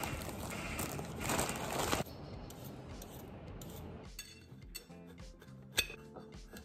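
A plastic snack-bar wrapper crinkling as it is handled, cutting off abruptly after about two seconds. Then soft background music with light scraping and clicking of a vegetable peeler and knife on a carrot, and one sharp click near the end.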